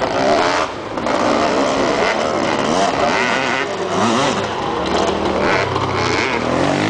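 Dirt bike engine revving, its pitch rising and falling again and again with the throttle.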